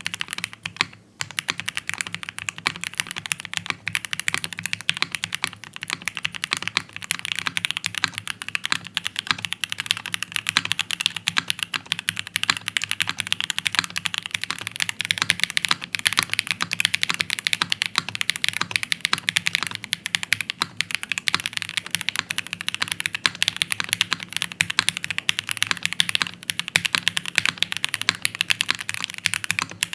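Continuous fast typing on a QK60 custom 60% mechanical keyboard with an aluminium plate, foam-filled case and GMK keycaps: a dense, unbroken stream of key clacks, pausing briefly about a second in.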